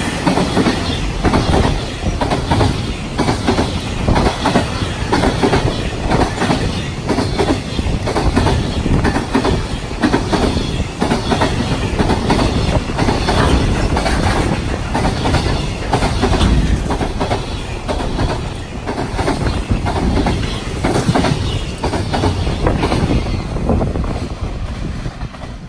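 Container wagons of a long freight train rolling past at speed: a steady rush of noise with a rapid clickety-clack of wheels over the rail joints, fading near the end as the last wagon goes by.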